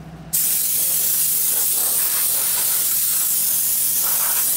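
Compressed air blasting from an air-hose nozzle: a loud, steady hiss that switches on suddenly about a third of a second in.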